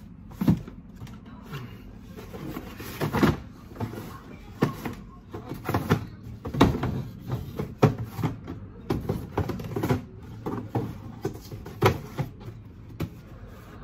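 Cardboard shoeboxes being handled, slid and set down on a stack: an irregular string of knocks, taps and scrapes, with sharper thuds about half a second in, around three seconds, and several more through the middle and near the end.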